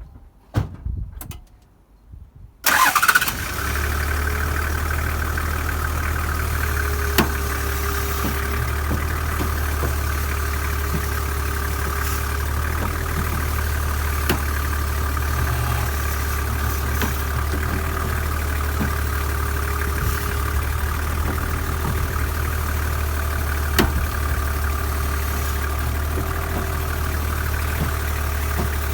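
Toyota Land Cruiser 70 engine starting about three seconds in after a few clicks, then idling steadily with the odd single tick.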